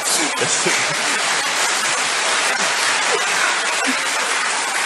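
Large audience applauding, with scattered laughter.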